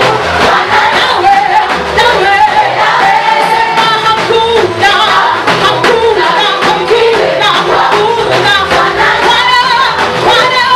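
A choir singing a Swahili gospel praise song to a steady beat, with the music going on without a pause.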